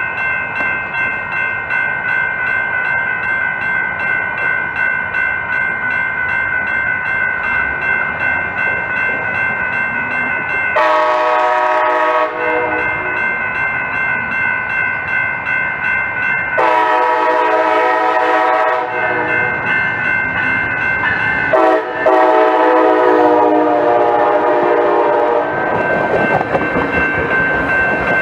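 Crossing bells ring steadily while a Coaster Siemens SC-44 locomotive approaches and sounds its horn in three blasts, the last one the longest. Near the end the rumble of the passing train cars joins in.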